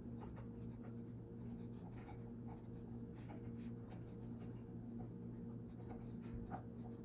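Glass dip pen's nib scratching lightly on paper in a string of short strokes as letters are written out, over a steady low hum.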